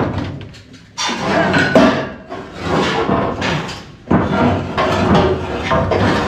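Heavy euroform concrete-form panels being dragged out of a stack, scraping and knocking against each other in three long heaves, with the worker's straining breath.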